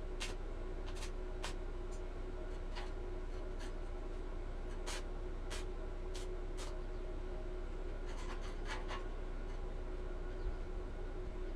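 Short scratching strokes at irregular intervals, like marking or scribing on the housing material, over a steady electrical hum.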